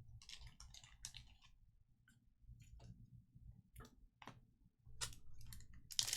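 Faint clicks and short rustles of trading cards being handled and sorted, sparse in the middle and building to a denser, louder flurry near the end.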